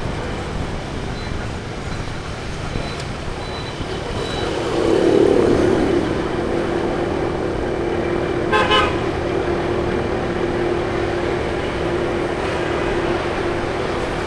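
Road traffic noise with vehicle horns: a steady tone held from about five seconds in almost to the end, and a short beep a few seconds later.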